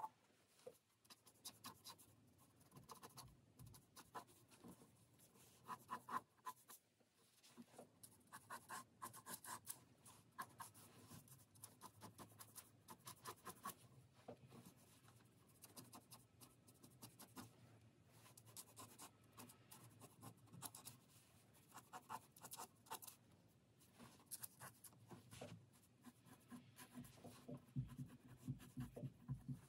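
Mechanical pencil scratching across drawing paper in many short, irregular strokes as lines are sketched; faint.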